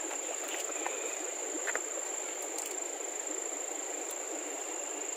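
Night insect chorus, a constant high-pitched trill, over a steady hiss, with a few faint clicks.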